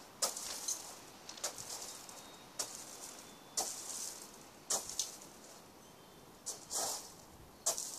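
Short, soft rustles at irregular intervals, roughly one a second.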